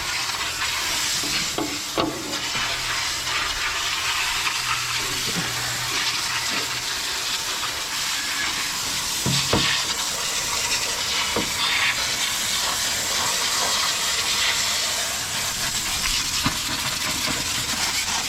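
Water from a hose spraying steadily onto the metal of a track loader's engine bay and hydraulic pumps, a continuous hiss with a few light knocks.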